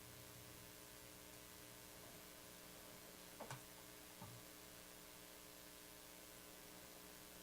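Near silence: a faint steady electrical hum, with two faint clicks a little past the middle.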